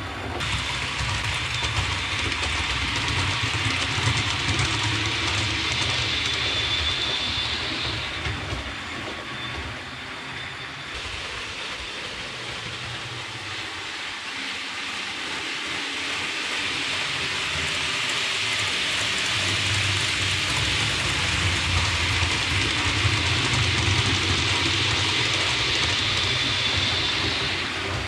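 OO gauge model of the British Rail Advanced Passenger Train running round the layout: a steady rumble of wheels on rail with a thin high whine, fading about a third of the way in and growing louder again in the second half as the train comes back round.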